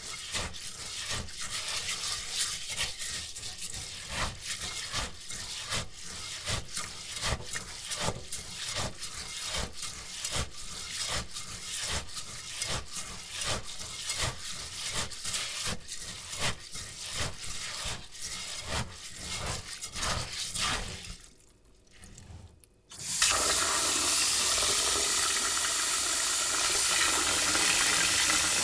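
Uncooked rice being washed by hand in water: a steady rhythm of rubbing, swishing strokes of the grains, about two a second, that stops about twenty seconds in. After a short pause a water tap runs steadily, louder than the washing.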